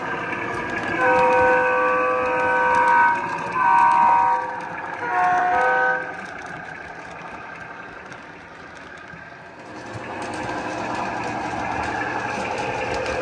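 Lionel Doodlebug model motor car's onboard sound system blowing its horn three times, the first blast about two seconds long and the next two shorter, over the steady running rumble of the O-gauge model train. The rumble fades about halfway through and builds again near the end.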